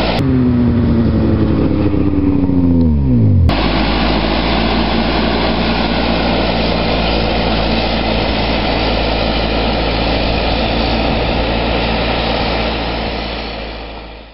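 A tracked snowcat's engine runs steadily while towing a grooming drag. Near the start the sound turns muffled for about three seconds while a tone slides down in pitch, then the full engine noise cuts back in abruptly. It fades out at the end.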